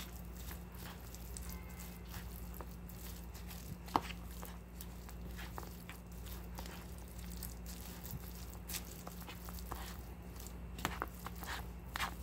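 A spoon mixing bibimbap in a bowl: irregular soft scrapes and clicks of the spoon against the bowl as the rice and toppings are stirred together, with one sharper clink about four seconds in. A steady low hum runs underneath.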